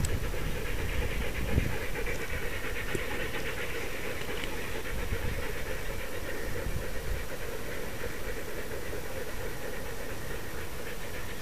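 Harnessed sled dogs (huskies) panting steadily at close range, with rustling and low rumble from the harness being handled near the microphone.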